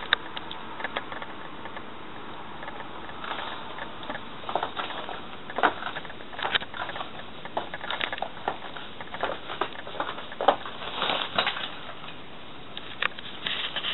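Rubber Wellington boots stepping and scuffing on a wooden kitchen floor, with a plastic mac crinkling as the wearer moves: irregular clicks, taps and crackles, sparse at first and busiest in the middle.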